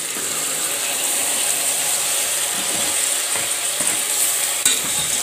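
Chopped tomatoes sizzling as they hit hot oil and fried onions in an aluminium pressure cooker, with a steel spatula scraping and knocking against the pot and one sharp click near the end.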